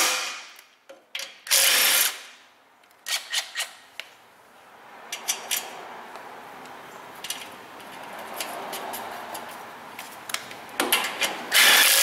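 A cordless impact wrench runs in short bursts on exhaust nuts under a car, once about a second and a half in and again at the end. In between come a few light metallic clinks over a low steady shop noise.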